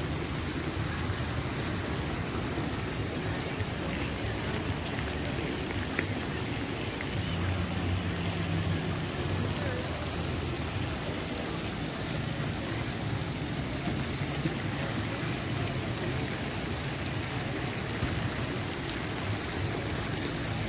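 Steady hiss and splash of water-park fountains and spray jets falling into a shallow pool, with faint voices of people mixed in.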